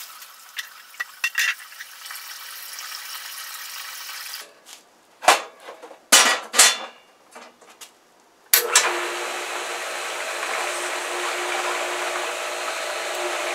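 Water from a garden hose running into the pool pump's strainer pot, a few knocks and clicks, then about two-thirds of the way in the pool pump's electric motor switches on and runs with a steady hum and a rushing of water and air as the pump primes.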